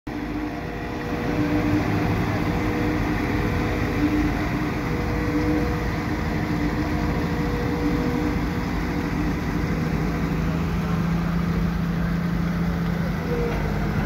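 Diesel engine of a Cat tandem steel-drum road roller running steadily as it compacts fresh asphalt. It is a constant drone whose tone drops lower about ten seconds in.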